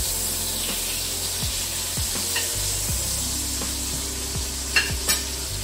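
Butter sizzling steadily in a frying pan as a rump steak is basted with it, with two sharp clicks close together about five seconds in.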